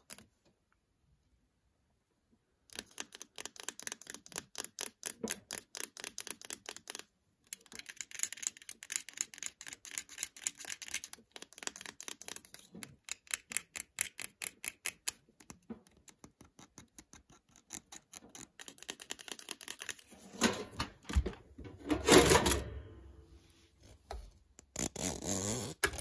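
Fingernails tapping quickly on the plastic casing of an Acer laptop AC adapter, several sharp clicks a second in runs with short breaks, starting a couple of seconds in. Near the end come a few louder bouts of the adapter being handled and rubbed.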